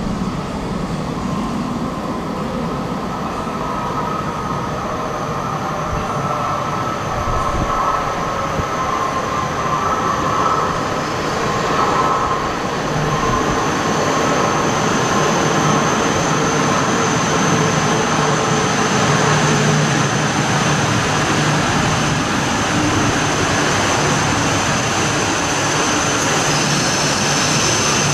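E6-series Shinkansen coming into and running along the station track: a continuous rumble of wheels on rail that swells over the first half and then holds steady, with a thin high whine joining about halfway through.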